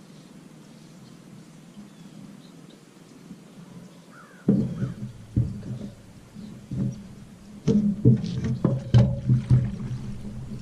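Quiet outdoor background with a faint bird chirp. About four and a half seconds in, loud close handling noise starts suddenly, with knocks, rubbing and a steady low hum, as the angler fights a hooked bass toward the bank.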